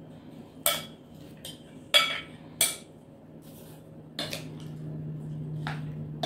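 A plastic serving spoon clinking and scraping against a glass bowl and a ceramic dish as chopped fruit is scooped out and stirred: about six sharp clinks, the three loudest in the first three seconds, over a low steady hum.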